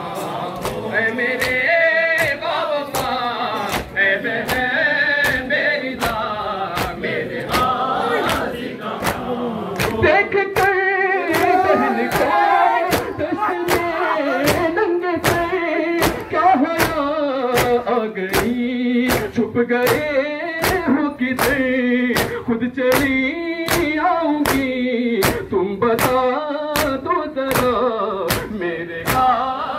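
Group of men chanting a nauha in chorus, with the sharp slaps of matam chest-beating keeping a steady beat about one and a half strikes a second.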